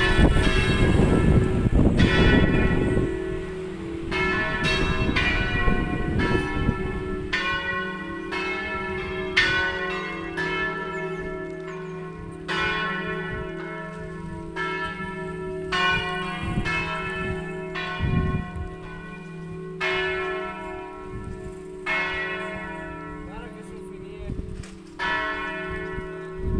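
Church bells ringing in a bell tower: several bells striking in turn, roughly one to two strokes a second, each stroke ringing on over a low lingering hum. A loud low rumble covers the first three seconds.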